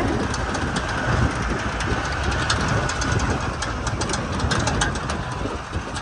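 Safari canter's engine running, with frequent rattles and knocks from the vehicle body as it goes over a rough track, heard from on board.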